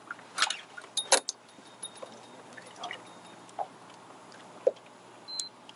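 Small clicks, clinks and knocks of fishing tackle being handled on a small boat, the sharpest about half a second and a second in. A short high electronic beep sounds at the start and again near the end, over a low steady hum.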